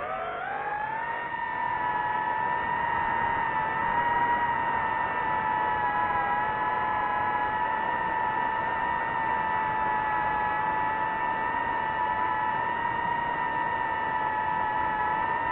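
FPV drone's motors and propellers whining at a steady high pitch, rising as the throttle comes up in the first second and then holding level.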